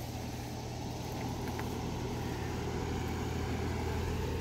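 Steady low mechanical hum, slightly louder toward the end, with no clear calls over it.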